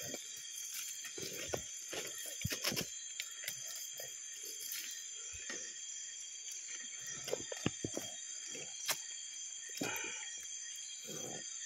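Cast net being handled on wet gravel: scattered clicks, clinks and rustles of the mesh and its weights as a hand picks through it. Underneath runs a steady high-pitched chirring of night insects.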